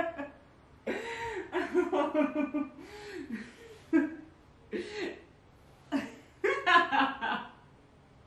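A woman laughing in a series of short bursts, catching her breath between them, while straining through a floor exercise.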